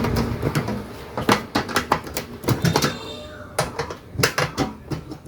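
Irregular clicks and knocks of a rice cooker's metal and plastic parts being handled as it is taken apart.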